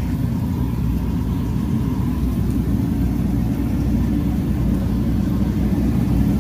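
Shop heater running with a steady, loud low roar.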